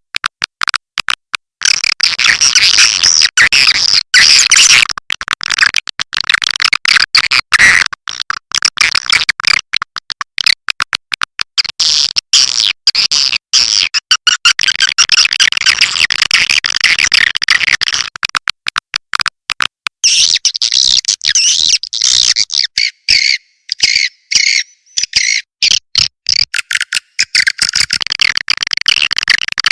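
Swiftlet call recording of the kind played to lure edible-nest swiftlets into a swiftlet house: dense, high chirping and twittering from many birds, with no low sound under it, broken up over and over by brief gaps. About 20 s in the chorus thins into more separate, sharper chirps.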